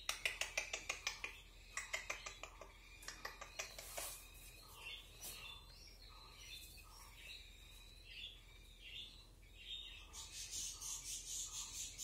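Rose-ringed parakeet giving a string of short, repeated chirps while being hand-fed. A quick run of clicks comes in the first second, and a fast, scratchy rasping near the end.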